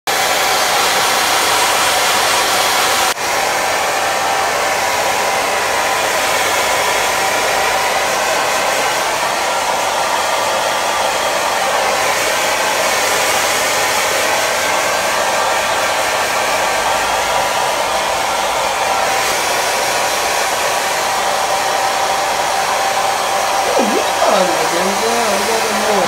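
Handheld hair dryer running steadily while drying wet hair: a continuous rush of air with a steady whine, dipping briefly about three seconds in.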